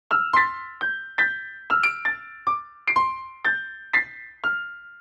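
Keyboard playing a simple melody of single high piano notes, about a dozen of them at roughly two a second, each struck and fading away, with the last note left ringing out.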